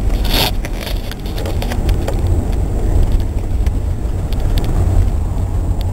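A vehicle on the move: the steady low rumble of engine and road noise, with a short sharp noise about half a second in.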